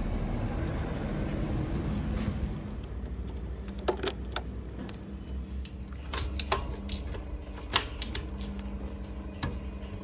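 Sharp metallic clicks and clanks, about six of them spread through, from a TVS motorcycle's kick-start lever and stand being handled as the bike is readied for a kick start, over a steady low rumble.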